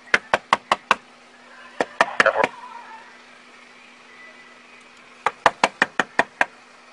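Rapid knocking on a car's side window in three quick runs of several raps each, to rouse occupants who are passed out inside.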